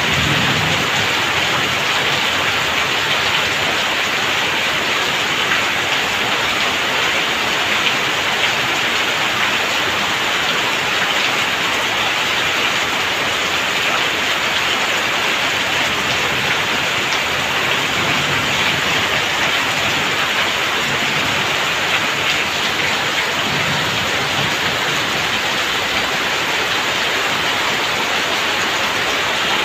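Heavy rain falling steadily, with water pouring off the roof eaves and splashing onto wet ground: a dense, even downpour.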